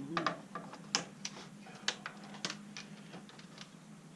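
Sharp, irregular clicks and snaps, roughly two a second, as wires are cut and pulled out of an elliptical's plastic electronic control console, over a steady low hum.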